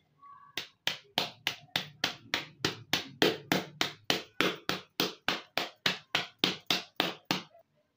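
Wooden rolling pin beating a sealed plastic bag of raw marinated chicken on a cloth-padded counter, about four steady blows a second, mashing the meat into one flat layer. The blows stop near the end.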